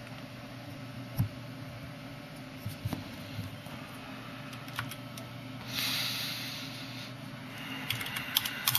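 A desktop computer humming steadily as it reboots, with a few scattered clicks and a short swell of hiss about six seconds in. Near the end comes a quick run of keyboard key presses.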